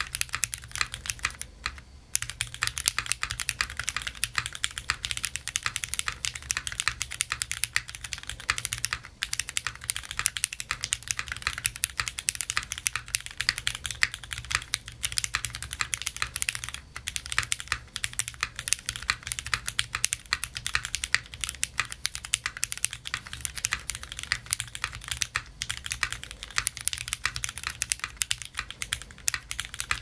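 Continuous typing on a 65% LifeZone LZ Prism mechanical keyboard, grommet-mounted aluminium plate, with lubed and filmed Cherry MX Black linear switches and GMK keycaps: keystrokes in quick succession, broken by a few brief pauses.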